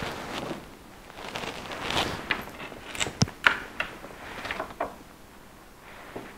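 Handling noise: rustling with a run of light clicks and knocks, the sharpest about three seconds in.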